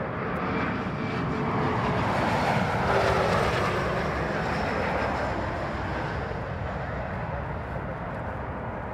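Airliner passing, a broad rushing engine noise that swells to its loudest about three seconds in and slowly fades, with a faint tone sliding lower in pitch as it goes by.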